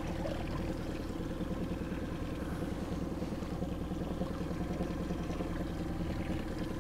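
A boat's motor running steadily at low power as the boat is eased back a short way.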